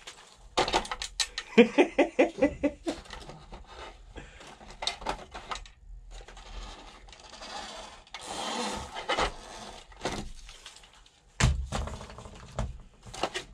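Plastic RC model parts clattering and knocking as they are handled on a tabletop: a crawler chassis is set onto a toy truck's plastic load bed and then moved aside. A run of quick clicks and knocks comes early, and a single sharp knock near the end.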